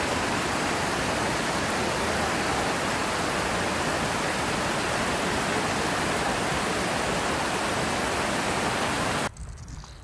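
Waterfall: a steady, loud rush of falling water heard close to the falls. It cuts off abruptly near the end, leaving a much quieter outdoor background.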